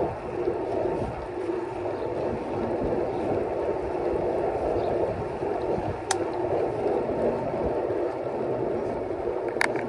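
Steady rushing noise of wind and tyres on a moving bicycle, with a sharp click about six seconds in and another near the end.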